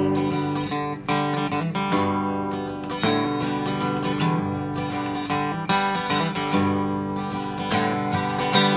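Solo acoustic guitar strumming chords in a country/folk style, with no voice over it.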